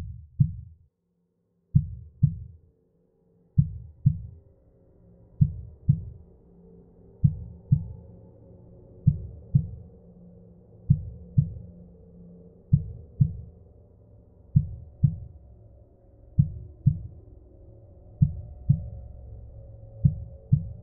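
Suspense soundtrack: pairs of deep heartbeat-like thumps, one pair about every two seconds, over a low drone that comes in about a second in and slowly swells.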